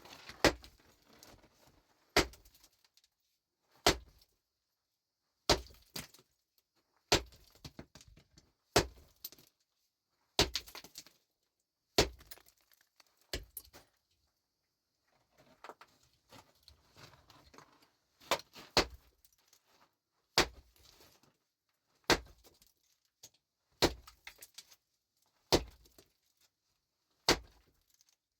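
A hammer striking rock over and over, one hard ringing blow about every second and a half to two seconds. The blows pause for a few seconds midway, with quieter scraping and knocking in the gap.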